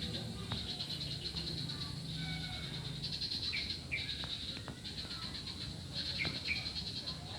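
Short bird chirps repeating over a steady high buzzing drone, with a low rumble underneath.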